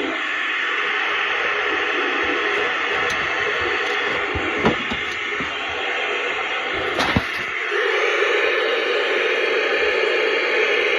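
Weather radio receiver's speaker giving a steady static hiss with no clear broadcast coming through, with a few faint clicks.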